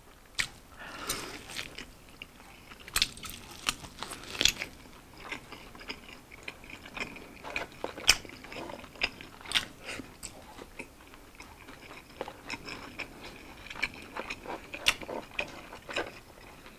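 A person biting into and chewing a sauced fried chicken wing, with irregular crisp crunches.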